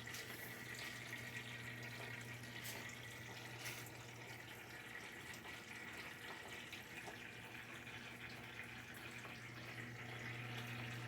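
Water running steadily into a Brastemp BWK top-loading washing machine's tub during the fill stage, under a steady low hum.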